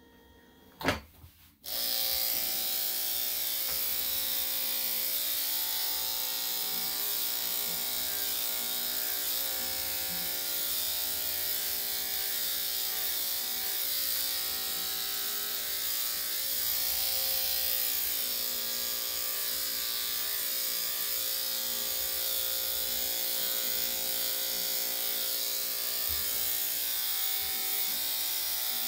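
A sharp click about a second in, then corded electric dog grooming clippers start and run with a steady buzz as they clip the dog's face and head.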